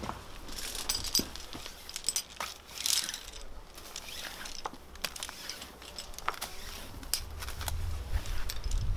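Aluminium carabiners and quickdraws clinking and jangling as climbing gear is racked on a harness, a run of sharp metallic clicks; a low rumble comes in near the end.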